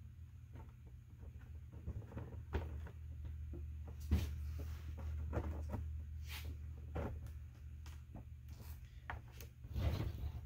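Yellow 3D-printed plastic hive frame being handled and shifted on a wooden workbench: scattered light plastic clicks and knocks, the sharpest about four seconds in and a few more near the end, over a steady low hum.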